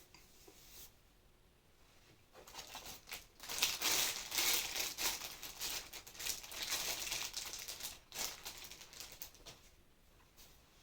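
Plastic wrapper of a sakura daifuku being crinkled and pulled open, a rustling that starts about two seconds in, is loudest a couple of seconds later and dies away near the end.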